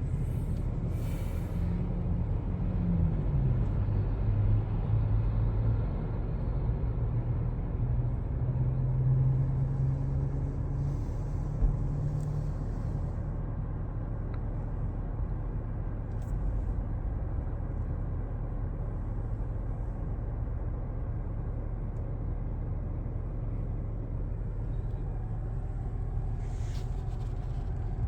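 A motor vehicle running with a steady low rumble of engine and road noise. The engine note drops in pitch about three seconds in, then holds steady for a while.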